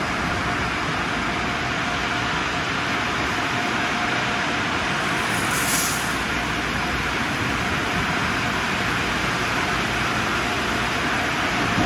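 Car wash tunnel equipment running: water spraying and pouring down from an overhead spray arch in a steady rush, with a faint steady whine underneath. A short hiss stands out about six seconds in.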